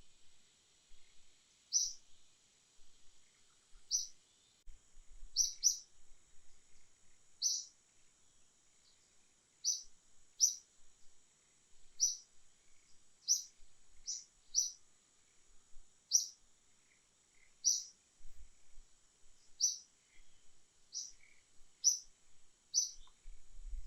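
A bird calling with short high chirps, repeated about every one to two seconds, over a steady high insect drone.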